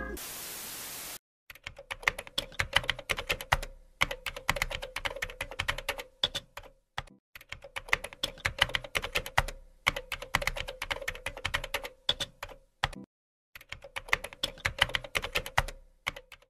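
About a second of steady hiss, then computer-keyboard typing: runs of rapid keystrokes broken by short pauses.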